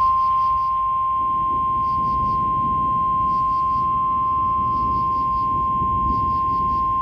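NOAA Weather Radio 1050 Hz warning alarm tone: one loud, steady high tone over a hiss of radio static, the signal that a warning message is about to be broadcast.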